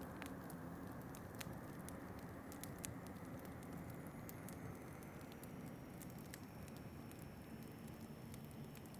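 Wood fire crackling with scattered sharp pops over a steady low rush of wind. A faint high wind whistle comes in about halfway.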